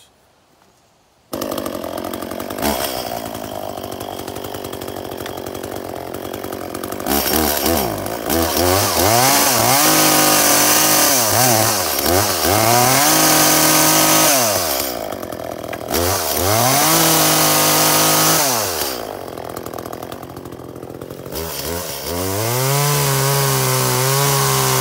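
Two-stroke ECHO chainsaw engine comes in suddenly about a second in and idles, then is revved up and down again and again while cutting through a pile of brush and branches, its pitch rising to a steady high whine and falling back to idle between cuts.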